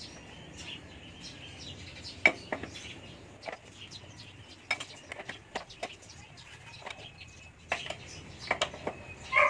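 Scattered metallic clinks and clicks of an adjustable wrench on the scooter's rear hub axle nuts, with short bird chirps in the background.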